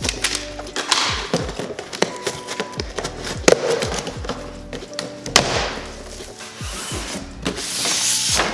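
Background music with a steady beat, over knocks and rubbing from a cardboard PC-case box and its packing being opened and handled.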